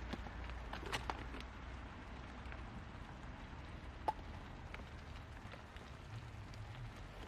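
Steady rain falling, with a few scattered ticks, one sharper than the rest about four seconds in.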